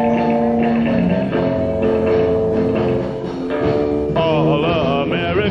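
Live rock and roll band in an instrumental guitar break: held guitar notes over the band, then a run of bent notes from about four seconds in.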